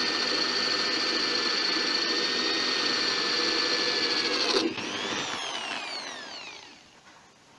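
Electric drill running steadily under load, boring a hole through the metal cover of a GAZ-66 power-steering pump. It is released about four and a half seconds in, and the motor's whine falls away as it spins down.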